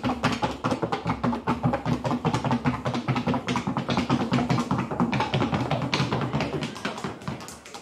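Paso Fino horse's hooves in the classic fino gait: a rapid, even four-beat staccato of hoof taps, fading near the end.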